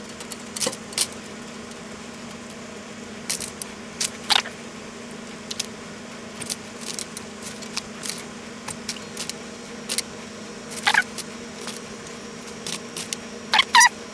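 Steel paper clips clinking as they are taken from a plastic tub and set into a floating aluminum foil boat: scattered light metallic clicks at irregular intervals, over a low steady hum.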